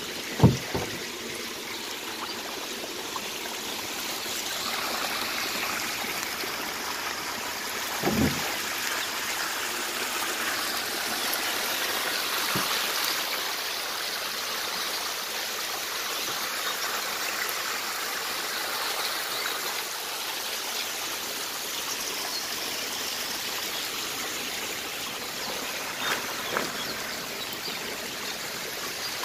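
Water running and splashing steadily in a shallow catfish-rearing tank crowded with magur fingerlings, with a few brief knocks near the start, about eight seconds in and near the end.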